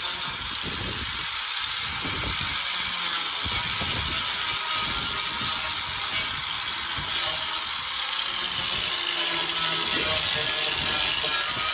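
Angle grinder with a sanding disc running steadily against the rusty steel of a VW Beetle's lower rear quarter panel, taking off surface rust and paint.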